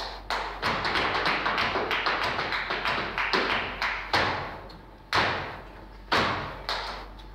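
Flamenco footwork (zapateado): a dancer's shoes striking the stage floor in a fast, dense run of heel and toe beats, then slowing to single heavy stamps about a second apart with lighter taps between.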